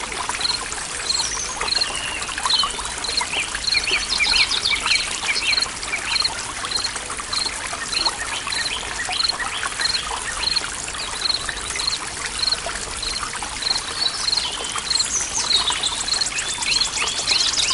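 Forest stream trickling and splashing steadily, with birds calling over it. One high pip repeats evenly, a little under twice a second, and other birds give quick falling chirps, with a rapid high trill near the end.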